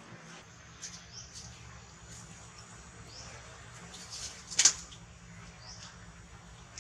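Baby long-tailed macaque giving short, high-pitched squeaks every second or so, with one loud, sharp shriek a little past halfway: distress cries while an older monkey pins it to the floor.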